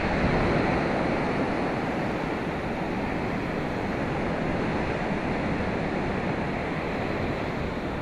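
Surf breaking on a beach: a steady rush of waves, with some wind on the microphone.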